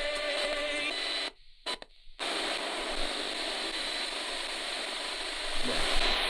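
Spirit box radio sweeping through stations: a steady hiss of static with short choppy snatches of broadcast sound. About a second in, it cuts out almost completely for about a second, then the static hiss returns.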